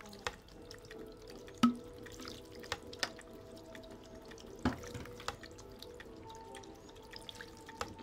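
Homemade bamboo fountain running: faint trickling and dripping of water falling from bamboo spouts onto pebbles, with a few sharp knocks, the loudest about one and a half seconds in and another near the middle, as the rocking bamboo spout tips.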